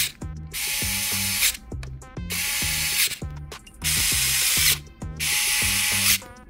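Handheld electric precision screwdriver running in short bursts as it drives the display hinge screws home, over background music with a steady beat.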